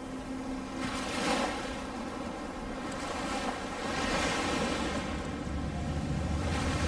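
Waves washing onto a sandy beach, the surf swelling and falling back every few seconds.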